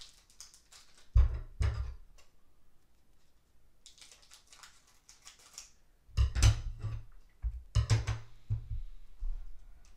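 Handling noise from trading-card packs being opened at a table: a couple of knocks, a soft crinkling rustle, then a run of louder knocks and bumps about six seconds in.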